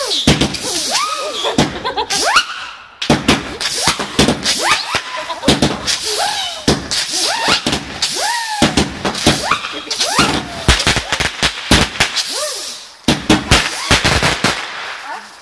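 Consumer fireworks barrage: a rapid, continuous string of bangs and crackles as shots launch and burst. Many short whistling tones glide up and then down over them.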